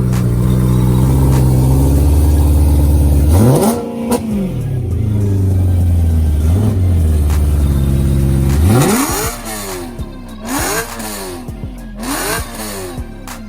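Car engines being revved: a steady high-revving drone, a hard rev about three and a half seconds in and another near nine seconds, then several quick rev blips rising and falling over the last few seconds.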